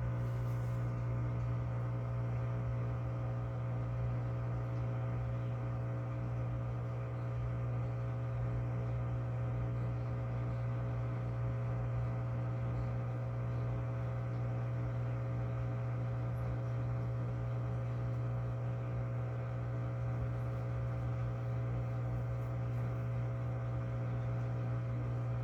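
LG Inverter Turbo Drum washing machine running with a steady low hum and never going into spin, a failure the technician puts down to the water-level pressure switch.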